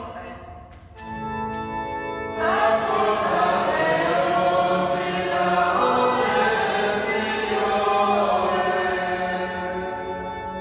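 A sung responsorial psalm with organ accompaniment: a held organ chord comes in about a second in, and from about two and a half seconds singing voices join over it.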